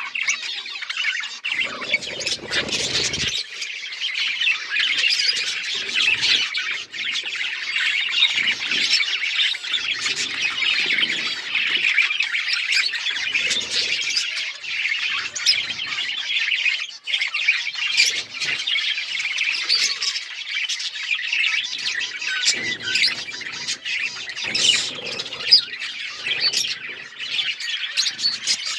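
A flock of budgerigars chattering and chirping continuously, a dense mix of warbles and squawks, with occasional soft low thumps.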